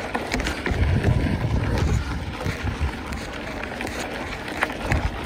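Wind buffeting the microphone of a camera on a moving mountain bike, an uneven low rumble, with scattered short clicks and rattles from the bike on the trail.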